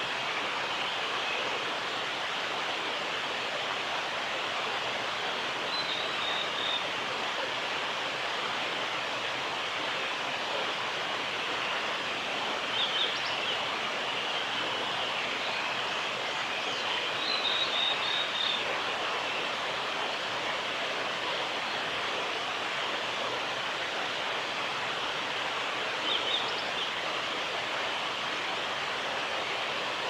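A steady rushing hiss dominates throughout. Over it, a male blue-and-white flycatcher gives four short, faint, high song phrases, spaced several seconds apart.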